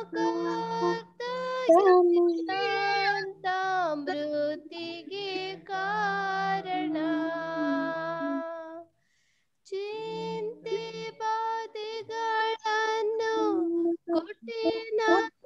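Voices singing a Kannada Christian hymn slowly, with long held notes, breaking off for about a second near the middle before the next line.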